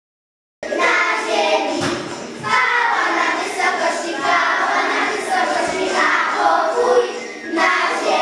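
A group of young children singing together in a classroom, starting abruptly about half a second in.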